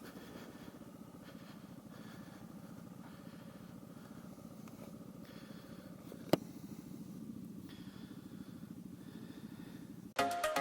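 Yamaha TT600R's single-cylinder four-stroke engine running steadily at low revs, a fast even pulse. A single sharp click about six seconds in, and electronic music starts near the end.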